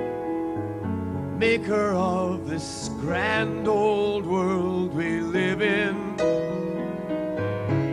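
A man sings a slow song in a held, vibrato-laden voice, accompanying himself on a grand piano. The voice comes in about a second and a half in and drops out around six seconds, leaving the piano chords ringing on.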